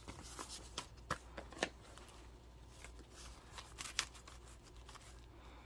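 Paper bills and a wallet being handled: faint rustling with scattered sharp clicks and ticks, the loudest about a second in, at a second and a half, and at about four seconds.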